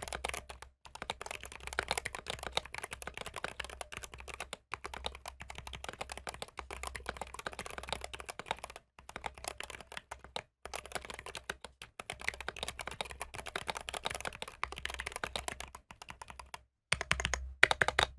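Mechanical keyboard with Drop Holy Panda X tactile switches being typed on fast and continuously, a rapid clatter of keystrokes in runs of a few seconds broken by brief pauses, with a few louder strikes near the end. The board has a slight ping-y ring that the owner puts down to the GMMK 3 Pro.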